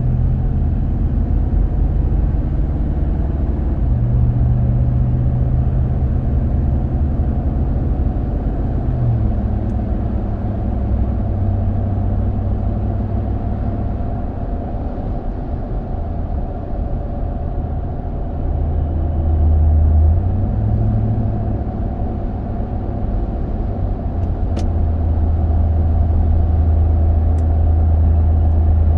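Road and tire noise inside the cabin of a Toyota Sequoia rolling on new Mickey Thompson Baja Boss all-terrain tires: a steady low drone and rumble. Its low hum shifts in pitch several times, and a brief click comes about 25 seconds in.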